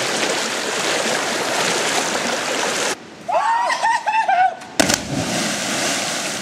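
Steady rush of creek water that stops abruptly, then high, rising-and-falling yells from people jumping off a rock ledge, and a splash into the creek about five seconds in, followed by churning water.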